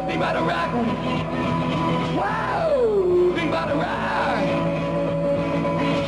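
Raw live rock and roll with guitar, and a singer letting out wordless yells at the mic: a long howl swooping down in pitch about two seconds in, then a shorter rising-and-falling whoop.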